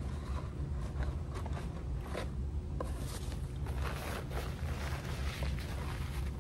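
Short, scattered rustles and light scrapes of a cardboard takeout box and a paper napkin being handled, over a steady low hum.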